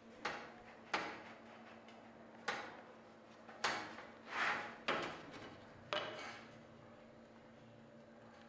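Thin steel sheet being handled by hand: about seven separate short knocks and rattles, each fading quickly, with a longer scrape about four and a half seconds in.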